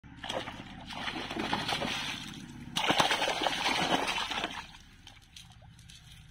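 Large fish thrashing in a cast net in shallow water, with heavy splashing and sloshing. It grows louder about three seconds in, then dies down well before the end.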